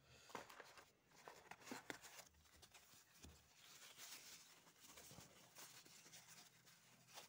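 Faint rustling and light clicks of paper and plastic packaging being handled during unboxing.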